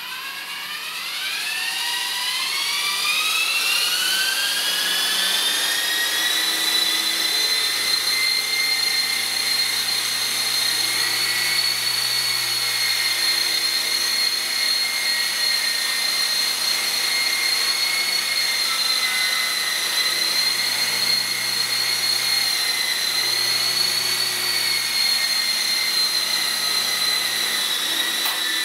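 E-Sky Hunter radio-controlled model helicopter's electric motors and rotors spooling up with a rising whine over the first few seconds. The whine then holds steady and high, wavering slightly, as the helicopter hovers and flies.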